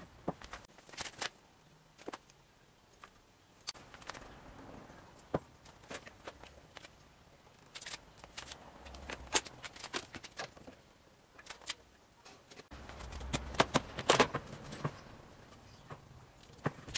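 Pallet-wood boards being handled and set down: irregular knocks and clatters of wood on wood, with a busier, louder run of knocks about two thirds of the way through.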